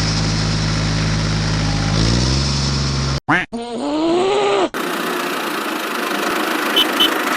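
An engine idling with a steady low throb, its pitch rising a little after about two seconds, then cut off abruptly. After further cuts, a steady whirring hum takes over, with two faint clicks near the end.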